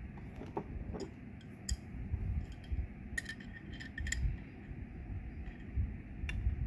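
Wrenches clicking and clinking against stainless steel quick-connect and nozzle fittings as they are tightened, over low handling thumps. The sharpest clicks come in a cluster around three to four seconds in and once more near the end.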